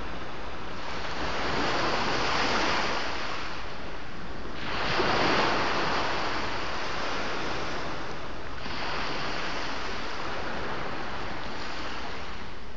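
Sea waves breaking and washing on the shore, two swells of surf about two and five seconds in, with a steady rush of water in between.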